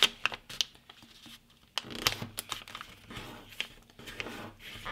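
Sheet of printer paper being folded in half by hand: scattered crinkles, rustles and sharp creasing clicks as the fold is pressed down.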